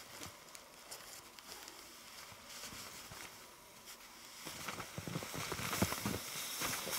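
Irregular crunching in snow, sparse and quiet at first, then busier and louder from about four and a half seconds in.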